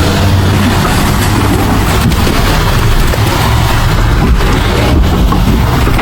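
Heavy diesel engine of an earthmoving machine running loud and steady, a low rumble with a few faint clicks.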